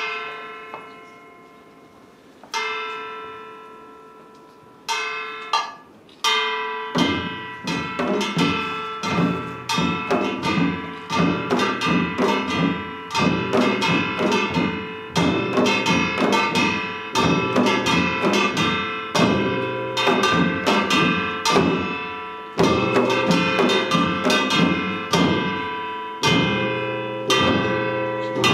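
Korean samul nori percussion ensemble playing Yeongnam rhythm. A handful of widely spaced, ringing metal strokes come first. About seven seconds in, the barrel drums and the rest of the ensemble enter together in a fast, dense, driving rhythm.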